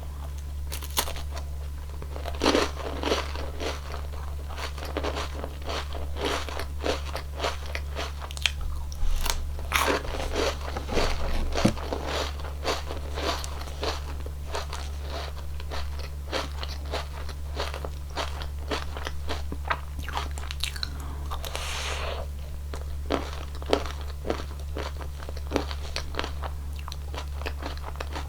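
Crisp wafer cone of a cone ice cream being bitten and chewed close to the microphone: dense, sharp crunching, with a few louder bites.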